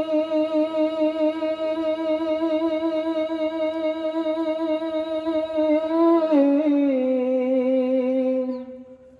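A man's solo singing voice, unaccompanied, sung into a microphone. He holds one long note with a wavering vibrato for about six seconds, then slides down to a lower note and holds it until it fades out near the end.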